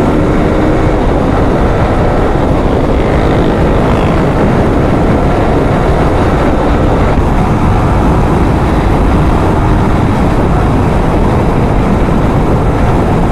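Steady rush of wind on the microphone with road and engine noise from a motorcycle being ridden at speed.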